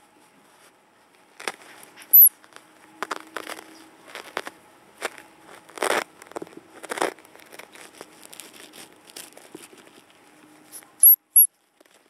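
Baby European hedgehogs (hoglets) giving short, very high-pitched squeaks: one about two seconds in and two in quick succession near the end. Between them are scattered rustling and crackling as they shuffle in a towel.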